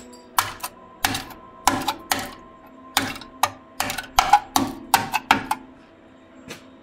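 A rapid, irregular series of sharp knocks or clicks, about a dozen and a half, that stops shortly before the end. Faint steady tones run underneath.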